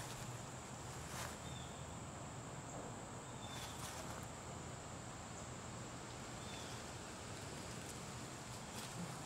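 Quiet outdoor ambience: a steady high-pitched tone over a low steady hum, with a few faint clicks and three or four short, faint chirps.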